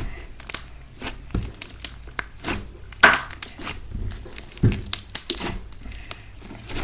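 Hands kneading and stretching a large lump of fluffy slime, giving irregular sticky crackles and pops, with the loudest snaps about three seconds in.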